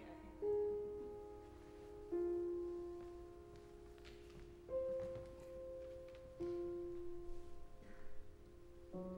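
Slow, sparse piano notes, one struck about every two seconds and left to ring and fade, with a fuller chord near the end.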